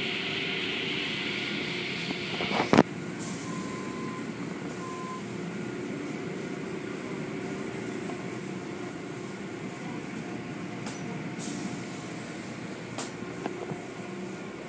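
Automatic tunnel car wash running: a steady hiss of water spray over the hum of the machinery. A brighter spray hiss stops with a sharp knock about three seconds in, and short whooshes of spray come now and then after that.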